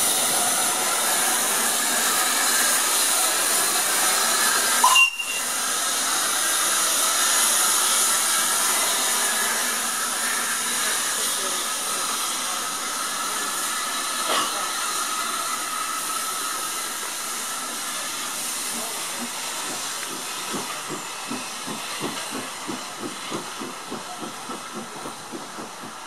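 Steam tank engine (GNR Class N2 0-6-2T) hissing steam steadily, with a brief whistle about five seconds in. From about twenty seconds in its exhaust beats start, roughly two a second, getting fainter as it pulls away.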